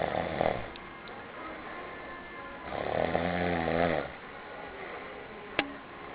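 A man snoring: the tail of one snore at the start, then one long pitched snore about three seconds in, lasting over a second. A short sharp click comes near the end.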